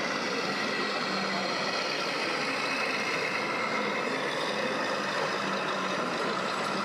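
The electronic sound module of a scale RC Volvo FH truck, playing a heavy diesel truck engine running slowly. Heard over the steady background noise of the hall.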